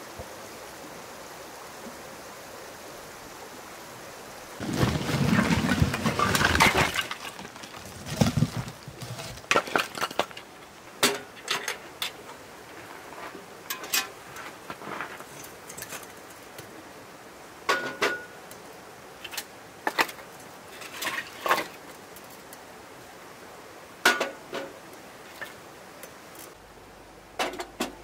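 Split firewood being handled beside a wood stove: a few seconds of loud rustling and shuffling about five seconds in, then a long irregular series of sharp wooden knocks and clacks as pieces are picked up and set down. A steady hiss of background noise lies underneath.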